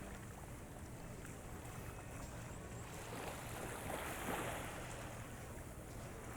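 Small, gentle sea waves washing onto the beach, with a soft swell about four seconds in, over light wind on the microphone.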